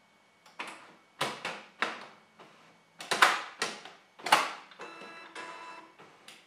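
Canon MF113w laser printer starting up just after being switched on. A run of sharp mechanical clicks and clunks comes from about half a second to four and a half seconds in. An internal motor then whirs steadily for about a second, and a last click follows near the end.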